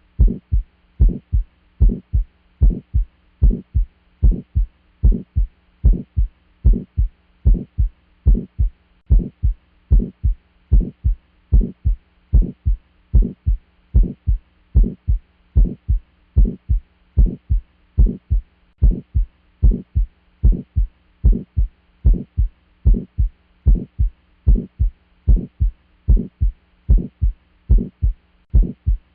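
Heart sounds heard through a stethoscope: a regular lub-dub beat with a steady, even rhythm and a faint steady hum beneath. This is presented as the auscultation sound of early aortic stenosis.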